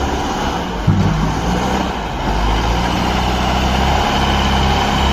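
Large truck engine idling steadily, with a brief rise in level and pitch about a second in before it settles back.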